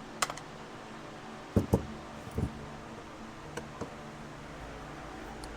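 A few light clicks and knocks of small tools and carburetor parts being handled on a workbench, about six in all, the loudest a pair about one and a half seconds in, over a steady low hum.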